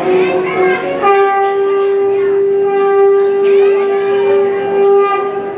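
Conch shell (shankh) blown for the aarti: one long steady note that starts about a second in and is held to the end, over faint singing voices.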